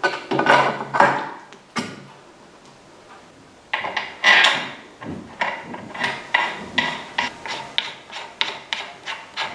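Hand-tool work: a few knocks, then a scraping rub about four seconds in, followed by an even run of sharp taps, about three a second.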